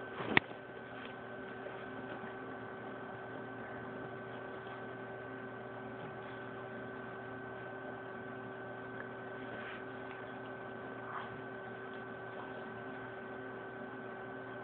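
Steady hum with two constant tones over a low hiss, and a single sharp click about half a second in.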